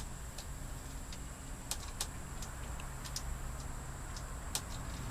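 Scattered small metallic clicks and taps of screws and lock parts being handled while fitting a camper door lock, over a steady low hum.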